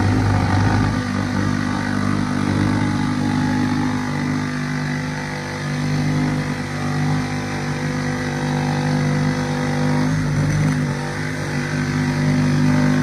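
Cordless drill running steadily under load as it bores into a plywood sheet. The hum's pitch shifts slightly about a second in and again about ten seconds in.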